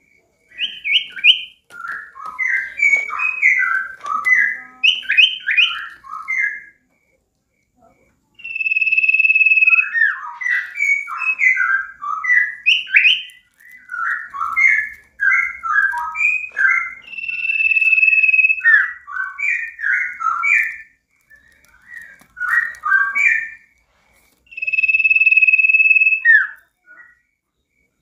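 Caged sirtu songbird singing: quick runs of varied chattering, warbling notes, broken three times by a long, steady, high whistle of about a second.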